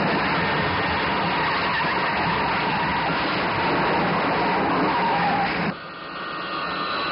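Sound-effect crash of a skidding, scraping vehicle: a loud, steady rushing scrape with no break. Near the end it drops suddenly to a quieter noise with a thin high whine.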